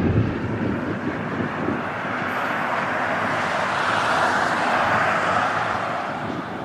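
De Havilland Canada Dash 8 turboprop airliner flying low overhead with its gear down: a steady rush of engine and propeller noise that swells to a peak about four to five seconds in, then fades as it moves away.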